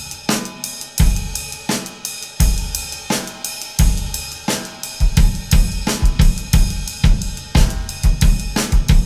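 Drum kit playing a slow sixteenth-note groove: right hand on the ride cymbal, left hand on the hi-hat, snare on the backbeats, with bass drum kicks from the right foot pedal. The kicks come about every second and a half at first and grow busier about five seconds in.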